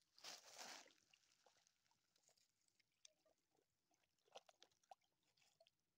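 Near silence: faint outdoor quiet with a brief soft rustling hiss shortly after the start and a few scattered faint ticks and patters.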